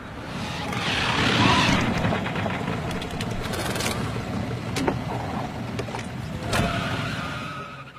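Motor vehicle noise: an engine running, with a rushing hiss that swells about a second in and a couple of sharp clicks later on.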